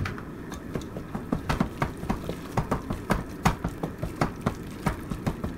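Wooden spoon stirring macaroni and cheese in a saucepan, with irregular knocks and scrapes against the pot, a few a second.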